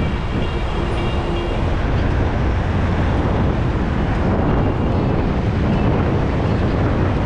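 Steady wind buffeting on a helmet-mounted camera's microphone while cycling, mixed with the rush of road traffic.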